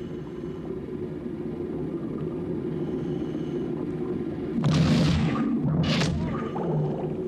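Underwater battle sound effects: a steady low underwater rumble, broken about four and a half seconds in by a loud, sudden hissing burst and a shorter one about a second later.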